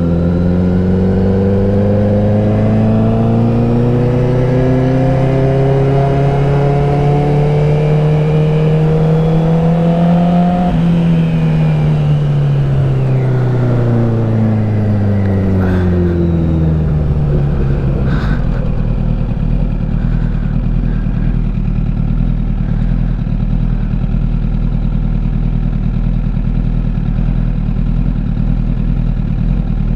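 Honda CBR1000RR's inline-four engine pulling hard in one gear, its pitch rising for about ten seconds, then winding down as the bike slows. It settles into a steady low, lumpy running sound for the last third.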